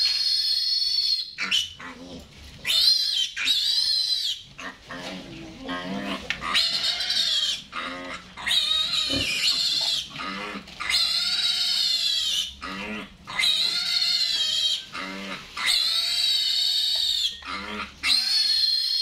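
Piglet screaming in distress while held up by its hind legs and injected: a dozen or so long, high-pitched squeals, each about a second long, with short breaths between.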